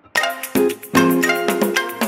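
Instrumental background music with bright struck notes in a quick rhythm, starting just after a brief gap.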